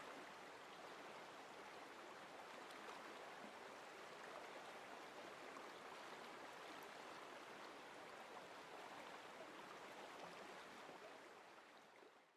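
Faint, steady rushing of a flowing stream, fading out near the end.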